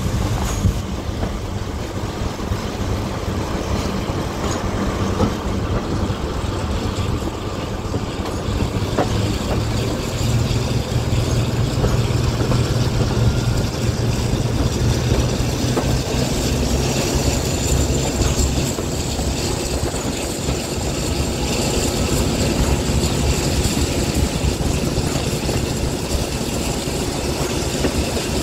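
Diesel locomotive engine running steadily with a low throb, which grows louder for several seconds around the middle.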